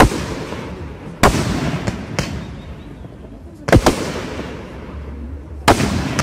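Aerial firework shells bursting overhead. There are five sharp bangs about one to two seconds apart, each followed by a long fading echo.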